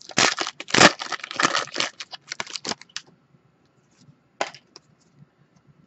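Foil wrapper of a Panini Donruss football card pack being torn open and crinkled: a rapid run of crackles for about three seconds, then quiet apart from one short crinkle a little after four seconds in.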